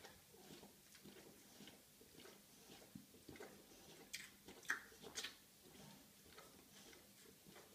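Near silence, with faint soft clicks and smacks scattered through it and a few sharper ones about halfway through.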